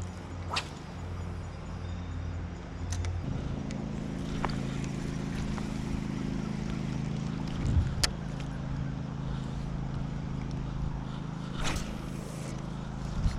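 A motor running steadily with a low hum, shifting up in pitch about three seconds in, with a few sharp clicks and knocks on top.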